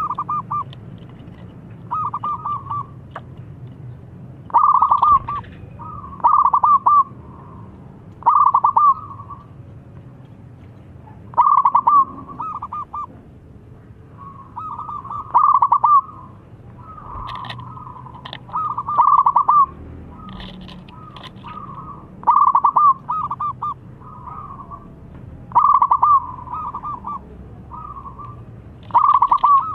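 Zebra dove (perkutut) singing: a loud phrase of rapid, staccato cooing notes repeated about every two to three seconds, with fainter cooing phrases in between.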